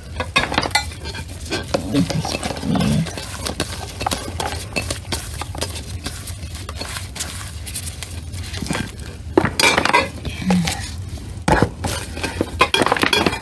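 Glass bowl scooping pomegranate arils out of a plastic colander: a steady run of clinks and knocks of glass on plastic, with the arils shifting.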